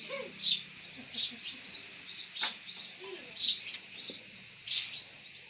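A small bird chirping repeatedly, short high chirps roughly once a second.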